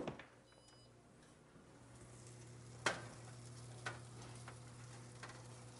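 A knock as the wall-oven door is opened, then faint sizzling of mahi fillets cooking in a hot pan inside the open oven, over a steady low hum, with a few light clicks.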